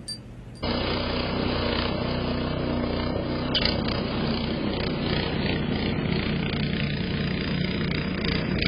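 A loud, steady engine-like drone that starts abruptly under a second in, with a brief sharper sound a little past halfway.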